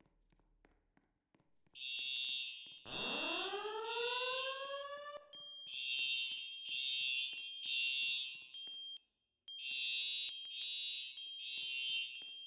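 Fire alarm sounding its evacuation tone: high-pitched beeps in groups of three with a short pause after each group (the temporal-three pattern), three groups in all, starting about two seconds in. Under the first group a lower tone slides upward and levels off.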